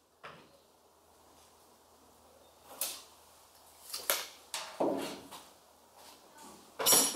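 Locking pliers being unclamped and handled against the truck bed's sheet metal: a few scattered metallic clicks and clanks, the loudest near the end.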